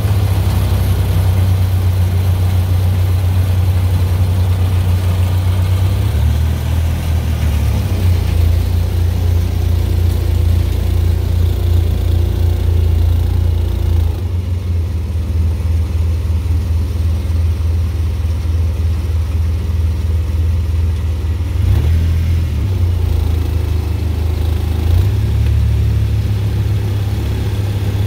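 Tractor engine running steadily under load, with the machinery of a New Idea two-row corn picker with sheller working behind it. The low engine drone shifts in pitch and level a few times.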